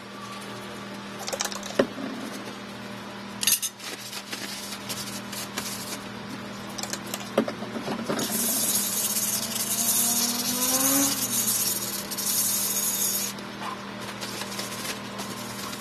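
Resin 3D-printed parts being handled and cleaned: a few sharp clicks and knocks, then about five seconds of steady high hiss like scrubbing, over a constant low hum.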